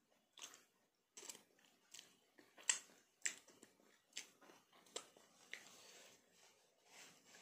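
Soft, wet mouth clicks and lip smacks from someone licking curry off her fingers after eating with her hands, a short click every half second or so.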